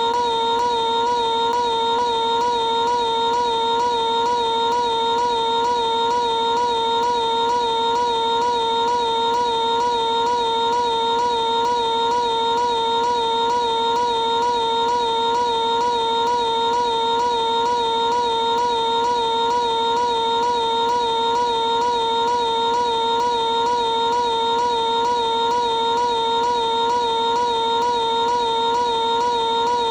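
Piglet's high-pitched cartoon voice held as one unbroken scream, stretched out with a slight regular wobble in pitch and never pausing for breath.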